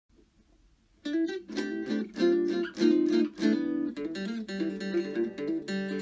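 Guitar music, strummed and plucked chords, starting about a second in.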